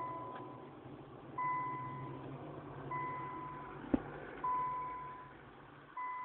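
Car alarm beeping: a steady single-pitched electronic beep that repeats about every second and a half, each beep lasting about a second. A sharp click sounds about four seconds in.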